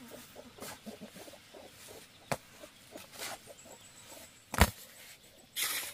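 Steel shovel working wet cement mortar: soft scraping and scooping, a sharp knock about two seconds in, a louder knock a little past halfway, and a short scrape near the end.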